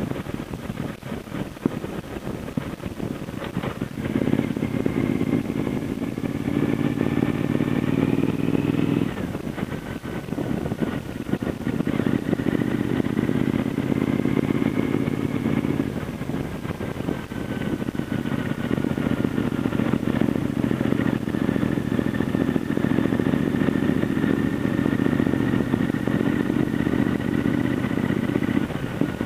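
Triumph America motorcycle's parallel-twin engine running on the move. It pulls under throttle in three spells, about four, twelve and nineteen seconds in, and eases off between them.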